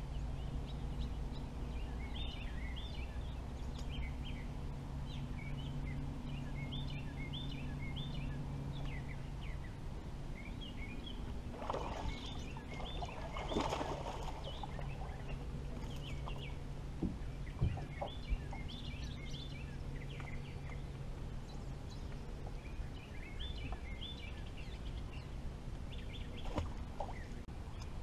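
Birds calling from the shoreline woods in short, repeated clusters of high chirps, over the low steady hum of an electric trolling motor that fades out about halfway. Water splashes twice near the middle, followed by a few sharp clicks.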